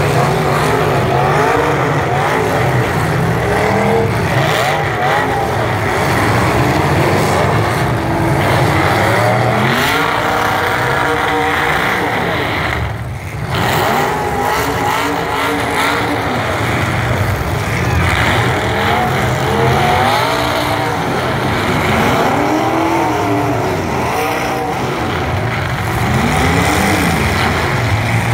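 Several demolition-derby truck engines revving up and down at once, their pitches rising and falling over a steady rumble, with a brief lull about halfway through.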